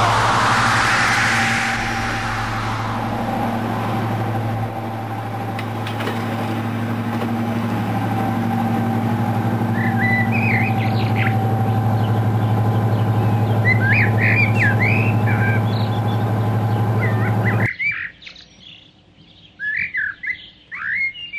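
Class 55 Deltic diesel locomotive's Napier Deltic engines running with a steady drone as the loco draws up close, growing slowly louder, with birds chirping over it. The engine sound cuts off suddenly near the end, leaving only birdsong.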